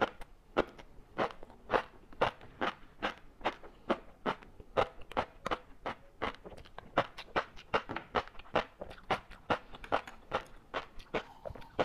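Close-up chewing of large-grain flying fish roe, the eggs crunching and popping in a steady rhythm of about two crunches a second.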